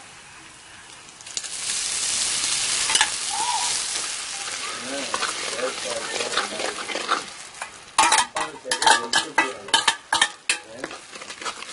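Ground tomato hitting hot oil in a clay pot, starting a sizzle about a second in that fades slowly as the wet paste cools the oil. In the last few seconds a steel spoon scrapes and clinks sharply against the steel bowl and the pot as the tomato is scraped out and stirred in.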